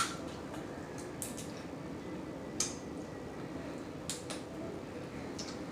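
Blue crab being eaten close to the microphone: low mouth and picking sounds with about five short, sharp clicks and cracks spaced a second or so apart.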